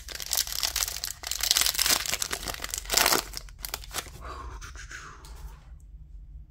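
A plastic trading-card pack wrapper being torn open and crinkled: loud crackling for the first few seconds, then softer rustling that stops about six seconds in.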